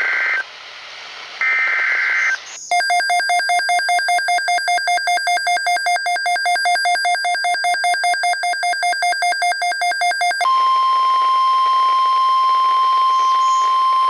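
Emergency Alert System tones opening a new weather alert. First come two one-second SAME data header bursts, raspy digital warbles. Then a rapidly pulsing electronic beeping alarm runs from about three to ten seconds in, and after that a single steady 1050 Hz weather-radio warning alarm tone.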